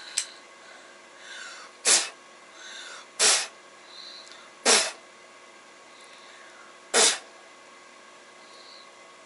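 A person lets out four sharp bursts of breath, each lasting about a quarter of a second and spread over several seconds. The first three come after a short, softer intake. A brief click comes just after the start.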